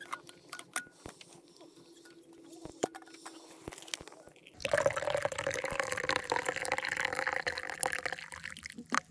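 A few light clicks and clinks, then from about halfway through, a hot drink pouring steadily from a metal thermos into its cup for about four seconds.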